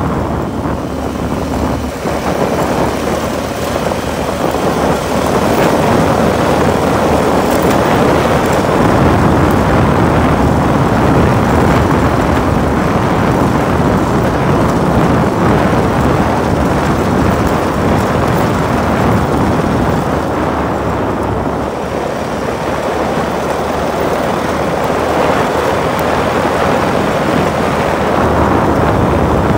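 An off-road vehicle running at speed on a gravel road: a steady mix of engine, tyres crunching over gravel and wind on the microphone. It grows louder about five seconds in and eases briefly near the end.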